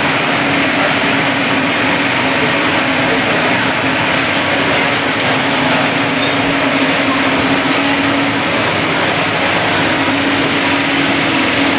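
Steady loud rushing noise with a low, even hum running through it.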